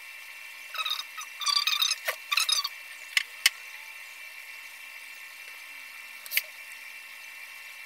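Several short high squeaks or scrapes in the first three seconds, then a few sharp clicks, as the small circuit board and tools are handled, over a steady high-pitched electronic whine.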